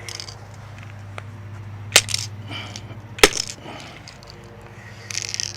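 Two sharp knocks about a second apart: the activator button on the bottom of a 2K clear coat aerosol can being struck to puncture its inner hardener chamber. A steady low hum runs underneath, and there is a short hiss near the end.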